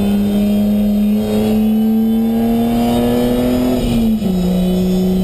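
BMW E30 325is straight-six engine heard from inside the car under load on track, its note climbing steadily, then dropping about four seconds in before holding at a lower pitch.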